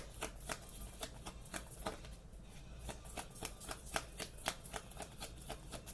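A tarot deck being shuffled by hand: a run of short, irregular card slaps, about three or four a second.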